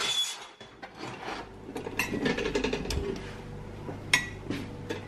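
Handling noise: a paper job sheet rustling and chromed pot-metal trim parts being moved, with scattered light clicks and one sharper click about four seconds in.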